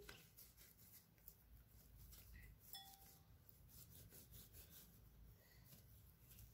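Near silence: room tone with a few faint, scattered ticks.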